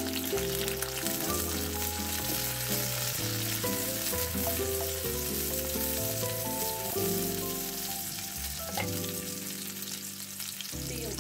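Sliced garlic sizzling in hot cooking oil in a wok, stirred now and then with a wooden spatula. Background music of held notes plays underneath.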